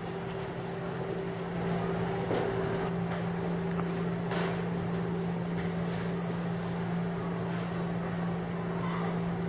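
A steady low hum, with a few faint knocks at about two, four and a half, and six seconds in.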